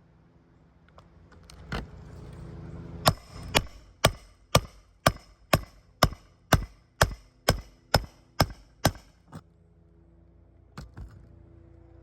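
Hammer driving roofing nails into a 3-tab asphalt shingle: a single blow, then about fourteen sharp, evenly spaced blows at roughly two a second, which then stop.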